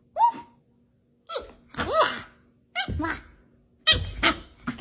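A pet's short, pitched calls, about seven of them, each under half a second, with a few dull thumps mixed in.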